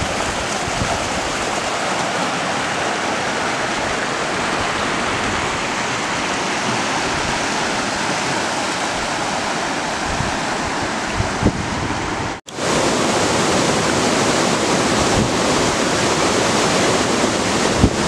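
Stream water rushing over rocks in small rapids, a steady loud rush, with wind rumbling on the microphone. It drops out for a moment about twelve seconds in.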